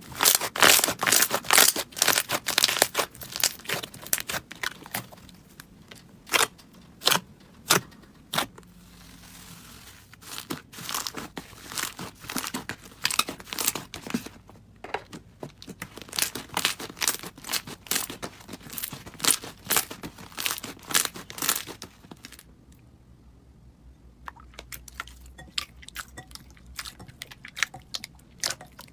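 Slime being squeezed and pressed by hand, giving dense runs of sharp crackling and popping clicks that come in clusters. The clicks thin out for a stretch about three-quarters of the way through, then return faintly.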